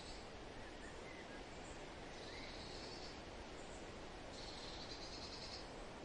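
Outdoor ambience: a steady background hiss with an insect's high buzzing trill coming in bursts of about a second, twice, and a few faint short chirps.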